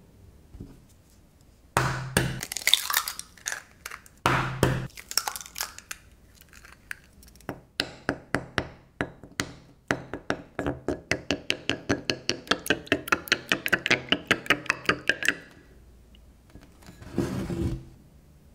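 Eggs cracked into a ceramic bowl with two crackly breaks, then beaten with a wooden spoon, the spoon clacking against the bowl about five times a second for several seconds. A short scrape comes near the end.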